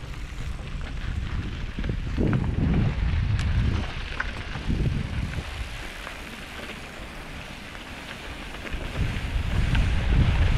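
Wind buffeting the microphone of a mountain-bike-mounted camera as the bike rides over a dirt and gravel track, in uneven low rumbling gusts that swell about two seconds in and again near the end.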